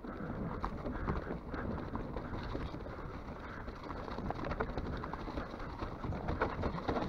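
Enduro mountain bike riding down a rough dirt trail: tyres rolling over dirt and stones, with the bike rattling and clattering in a steady run of small knocks.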